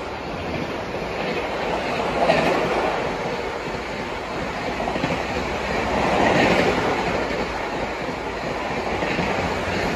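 Shatabdi Express coaches running past, wheels clattering over the track in a steady rumble that swells louder about two seconds in and again about six and a half seconds in.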